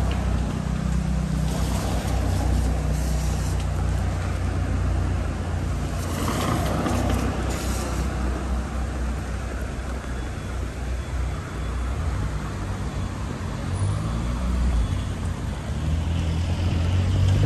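City street traffic on a wet road: a steady low engine hum, with cars swelling and fading as they pass.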